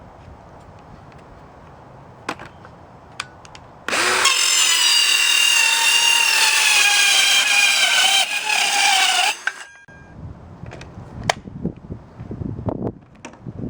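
A Black & Decker Matrix 20V cordless drill motor driving one of its quick-connect attachments runs as a high, steady whine for about six seconds, its pitch sagging slightly under load before it stops. Short knocks and clicks of handling come before and after it.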